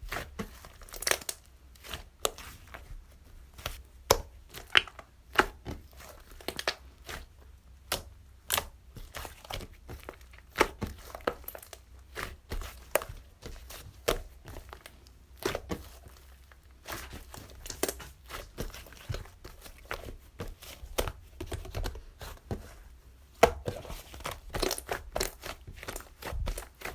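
Hands working a soft slime, stretching and pressing it, which gives irregular crackling pops and tearing sounds.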